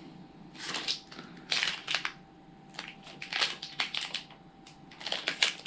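Packaging rustling and crinkling in irregular bursts as hands rummage through a box of snacks.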